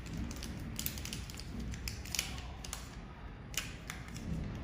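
Scattered light clicks and taps of the small parts of a handheld fiber laser welding head being handled while its protective lens is swapped, over a low steady hum.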